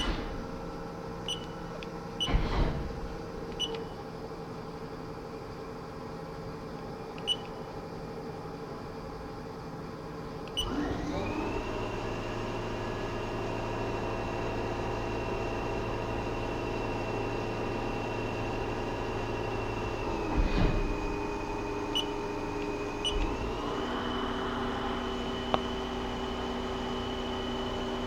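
Lathe running with a steady machine hum. About ten seconds in its pitch glides up and settles higher and louder as it speeds up, dips briefly near twenty seconds, then steps up again a few seconds later, with occasional light clicks.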